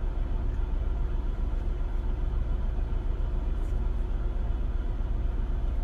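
Steady low rumble of a car's interior with the engine running, with a faint tick or two in the middle.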